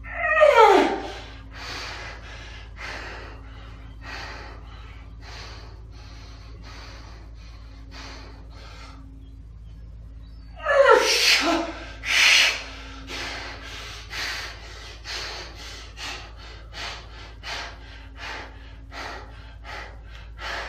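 A man breathing hard under strain during a set of dumbbell pull-overs. A loud groaning gasp falls in pitch right at the start and another comes about halfway. Between them and after, short forceful breaths come quicker and quicker toward the end.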